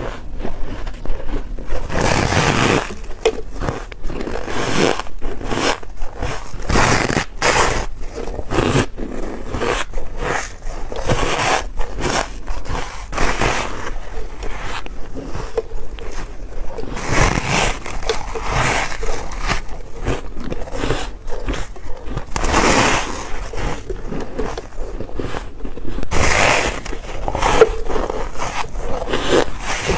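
Close-miked biting and chewing of soft freezer frost: a steady run of squeaky, crunchy bites, one after another.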